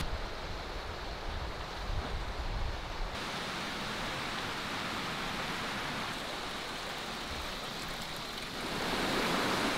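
Mountain stream rushing over rocks and small waterfalls, a steady wash of water noise. A low rumble lasts for the first three seconds, then the sound changes abruptly, and it grows louder near the end.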